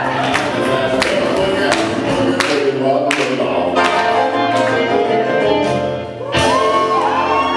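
Upbeat boogie woogie dance music with a singer over a steady drum beat; the music dips briefly about six seconds in and then comes back in full.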